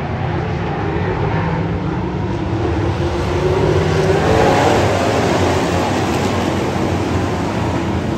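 A pack of street stock dirt-track race cars running at race speed, the engines' sound swelling loudest about four to five seconds in as the cars come around the turn.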